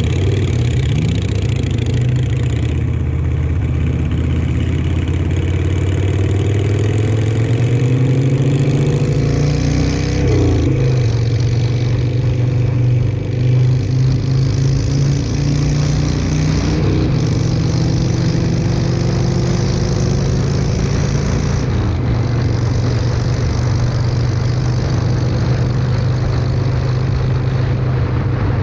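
Harley-Davidson Sportster XL883's 883 cc V-twin running through shotgun exhaust pipes under way. Its note is steady, with the revs dropping and climbing again about ten seconds in and again around seventeen seconds.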